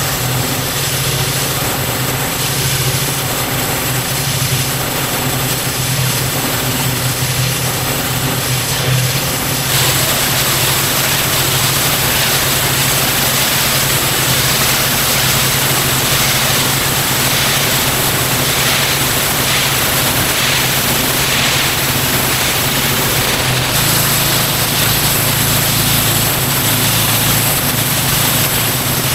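Petrol pressure washer engine running steadily, with a louder hiss joining about ten seconds in.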